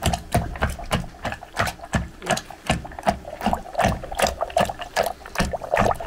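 A long wooden pestle pounding hard lumps of dried curd in a wooden mortar, in a steady rhythm of about three strokes a second.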